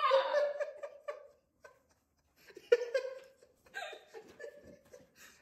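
Two people laughing while one is being tickled: a high laughing squeal at the start that rises and falls, then fades. After a short lull come more broken bursts of laughter.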